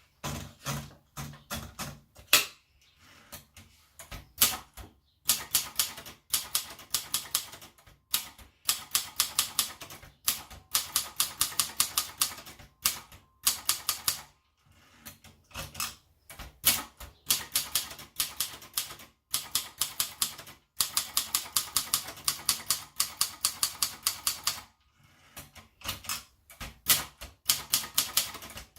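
Sperry Remington Idool typewriter being typed on: runs of quick key strikes, several a second, broken by short pauses.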